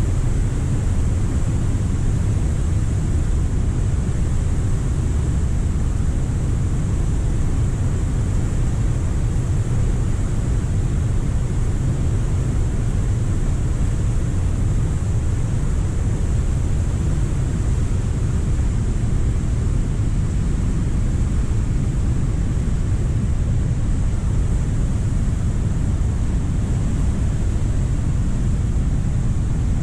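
Cumberland Falls in flood: high water pouring over the falls, a loud, steady, deep rushing with no let-up.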